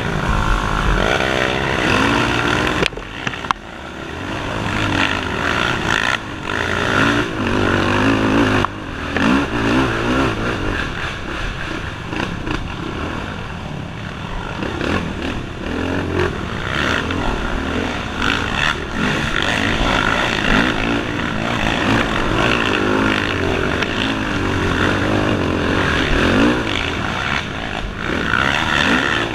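ATV engine heard from on board the quad, its revs rising and falling again and again under the throttle as it is ridden along a rough trail.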